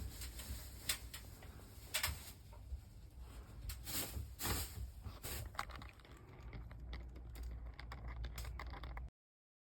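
Scattered light clicks and taps, like small hard objects being handled, over a low steady hum; the sound cuts off abruptly about nine seconds in.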